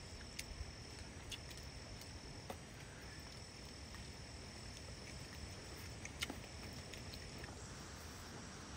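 An insect trilling steadily at one high pitch, with a short break about three seconds in, stopping near the end. A few small sharp clicks fall across it, the loudest about six seconds in.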